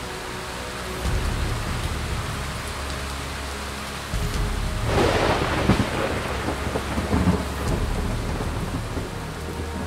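Heavy rain falling with thunder rumbling low, and a louder rush of noise about five seconds in that dies away over the next few seconds.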